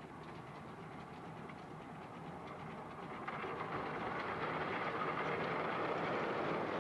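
A 10¼-inch gauge miniature steam train running past, its wheels clicking over the rails. It grows louder from about three seconds in as the locomotive and coaches draw level.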